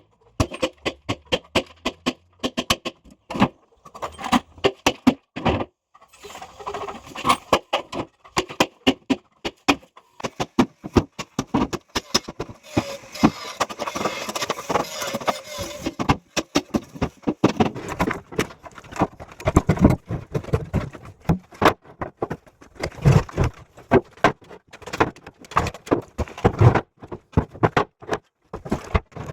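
Irregular metal clinking, knocking and rattling from concrete formwork being stripped, as form hardware is knocked loose and handled, with many sharp strikes in quick succession.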